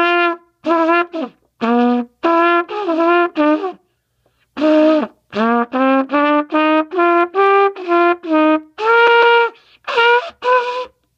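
Solo trumpet playing a melody of separate, tongued notes in short phrases, with brief pauses between phrases.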